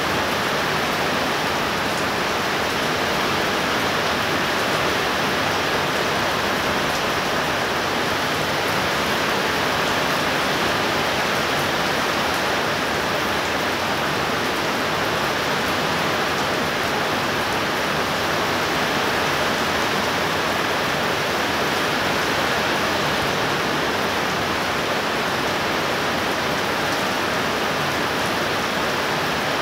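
Heavy rain pouring down steadily in an even, unbroken rush, with no thunder.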